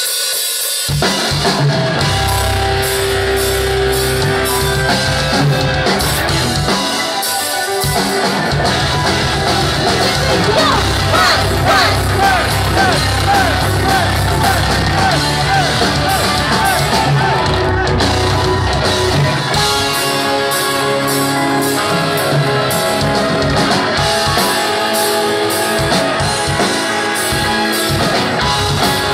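Live rock band with electric guitars, bass guitar and drum kit playing loud: the opening of a song, starting abruptly, with a short break about seven seconds in before the full band comes back.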